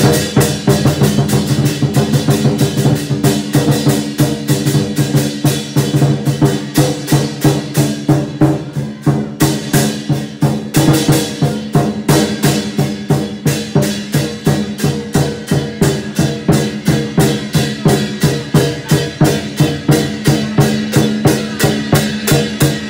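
Lion dance drumming: a large Chinese drum struck in a fast, steady rhythm of about three loud beats a second, with other percussion.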